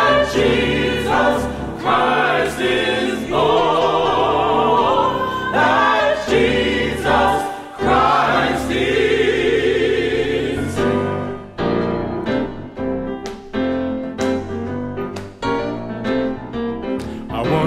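Choir singing with accompaniment, voices held with vibrato. About eleven seconds in the singing gives way to a quieter passage of short, struck notes.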